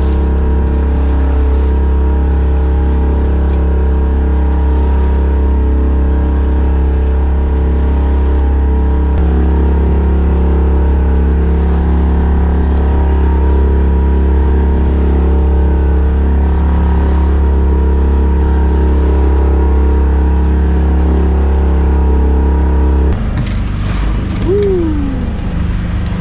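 A small sailboat's auxiliary engine running steadily under power through choppy sea, a constant low hum with wind and water noise over it. Near the end the steady engine note breaks off suddenly, followed by a short falling tone.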